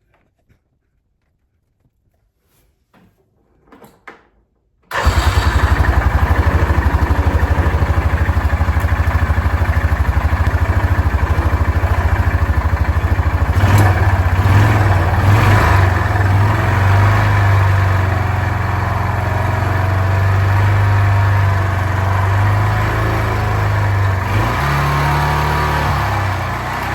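The single-cylinder four-stroke engine of a 2006 Yamaha Rhino 450 starts abruptly about five seconds in after a few faint clicks, then keeps running, picking up briefly around the middle. It has just been filled with heavier oil to soften a knock that the owner says it has.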